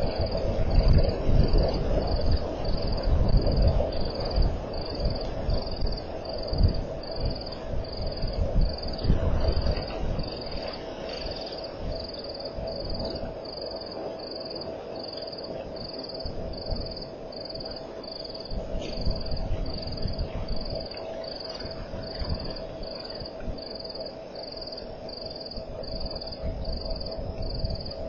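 Night bush ambience: a high chirp repeating evenly about one and a half times a second, over a steady low hum and a low rumbling noise that is louder in the first ten seconds.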